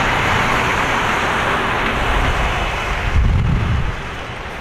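Airbus A330-200's Rolls-Royce Trent 700 turbofans running at idle as the airliner taxis, a steady jet roar and hiss. A low rumble swells briefly about three seconds in, and the sound eases a little just after.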